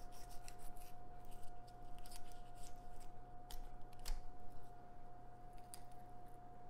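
Small kitchen knife cutting along a raw trout's backbone, the blade ticking and scraping over the rib bones in a quick irregular series of small clicks. A steady faint hum runs underneath.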